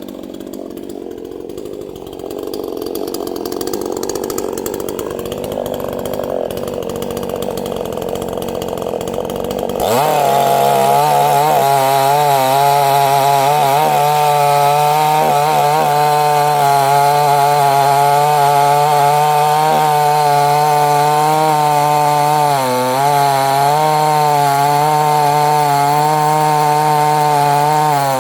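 A new Neotec NCS6800 68cc two-stroke chainsaw runs at low speed with a wavering pitch, getting gradually louder. About ten seconds in it is throttled up sharply to a loud, steady high-revving run, which sags briefly near the end.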